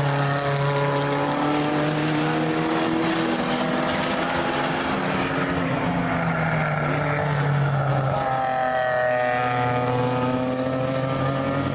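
GT race cars, among them a Ferrari 488, running at speed on the circuit: a continuous engine note whose pitch climbs, drops and climbs again several times as cars come past one after another.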